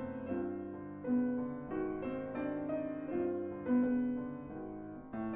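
Steinway grand piano played solo: a slow melody over sustained chords, with a new note or chord struck about every half second to second and left to ring.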